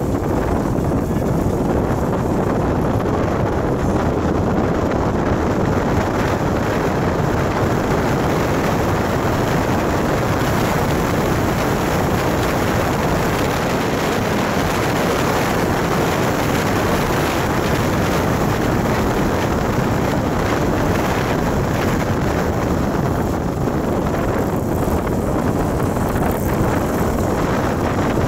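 Steady wind rushing over the microphone, mixed with the road and engine noise of a moving vehicle.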